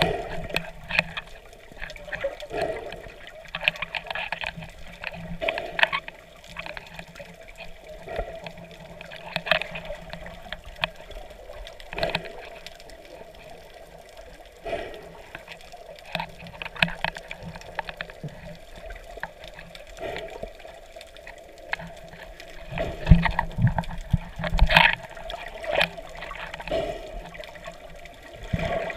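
Water sounds heard from underwater while snorkeling: muffled sloshing and bubbling, with irregular clicks and knocks and a faint steady hum underneath; the knocks come thicker and louder near the end.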